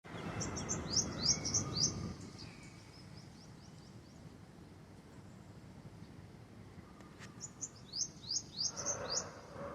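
A bird calling in two bouts of quick, high, rising chirps, about half a dozen notes in each, the first bout right at the start and the second near the end, with a low background rumble under the first bout.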